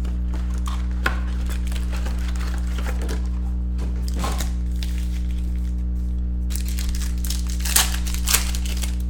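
Foil trading-card packs crinkling as they are handled and lifted out of their box, then a foil pack torn open with sharper crinkles near the end. A steady low hum runs underneath.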